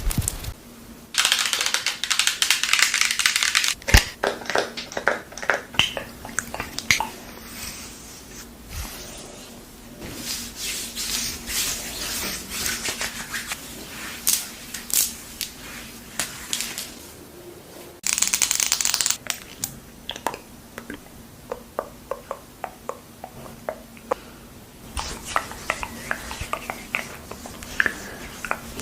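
Close-miked ASMR handling of skin-care products: short bursts of hissing noise alternating with many small taps and clicks.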